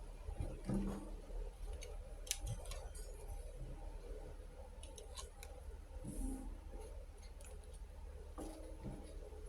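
Scattered light clicks, taps and snips from small plastic toy kitchen pieces and their packaging being handled, over a steady low hum.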